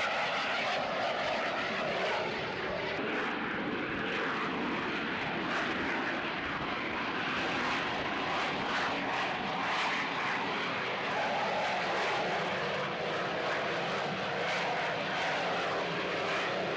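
Harrier GR7 jump jet's Rolls-Royce Pegasus engine running, a steady jet noise without a break, as the jet flies slowly with its undercarriage down.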